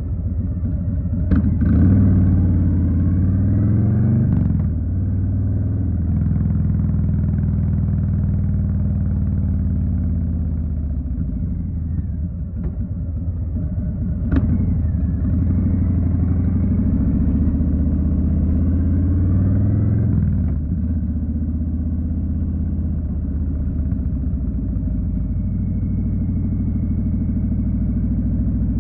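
2020 Harley-Davidson Street Bob's Milwaukee-Eight 107 V-twin running under way. It pulls up in pitch and drops back at an upshift about five seconds in, climbs again and shifts once more about twenty seconds in, then cruises steadily. Two sharp clicks come through, one just after the start and one midway.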